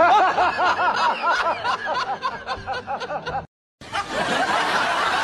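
High-pitched giggling laughter, a quick run of rising-and-falling notes about five a second, cut off abruptly about three and a half seconds in; after the cut, noisy crowd chatter.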